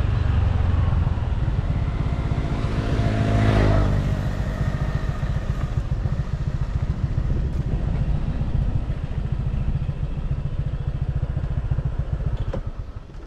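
Motorbike engine running under way, with a steady low rumble. It swells louder about three to four seconds in, and the sound falls away near the end.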